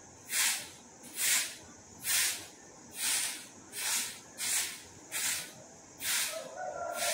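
Grass broom (jhaadu) sweeping a floor: about eight brisk, evenly spaced swishes, a little more than one a second.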